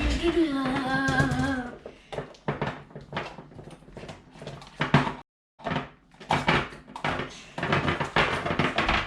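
A brief sung or hummed voice, then a run of irregular clicks and crackles from handling slime and its plastic containers, densest near the end.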